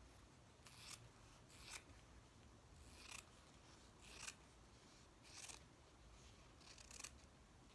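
Scissors snipping through quilting fabric in short, faint cuts, about one a second.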